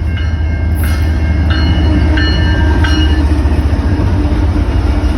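Freight train of tank cars rolling past at close range: a loud, steady low rumble. Between about one and three seconds in, a few short, high, steady tones sound over it.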